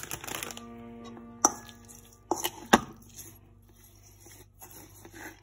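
A metal spoon stirring chicken strips and breadcrumbs in a stainless steel bowl, knocking sharply against the bowl a few times around the middle, over background music.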